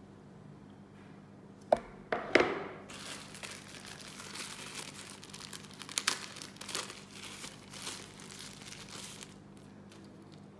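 A few sharp knocks about two seconds in, then a thin plastic bag crinkling and rustling for several seconds as a wired earphone is pulled out of it.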